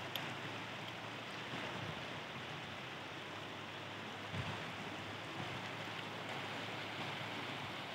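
Shallow river flowing over a stony bed: a steady rush of running water.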